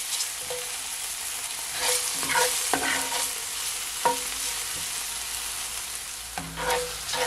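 Sliced onion, sweet peppers, tomato and thyme sautéing in hot olive oil in a skillet, a steady sizzle, with a few knocks and scrapes of a spatula stirring them against the pan.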